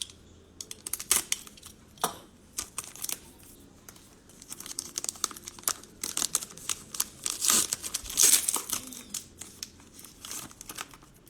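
Cellophane wrapper of a 2021 Panini Mosaic baseball cello pack being torn open and crinkled, with irregular crackles that come thickest a little past the middle.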